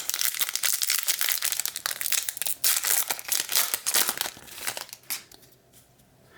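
Foil trading-card pack wrapper being handled: dense crinkling and crackling for about five seconds, thinning out near the end.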